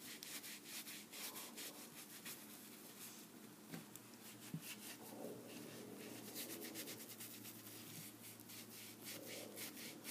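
A wipe being rubbed back and forth over skin wet with hand sanitizer, faint quick scrubbing strokes.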